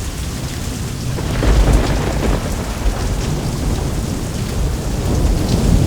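Heavy rain falling in a thunderstorm, with a deep rumble of thunder swelling about a second and a half in.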